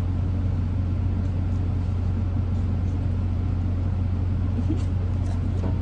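Steady low mechanical hum, even throughout, with a few faint clicks near the end.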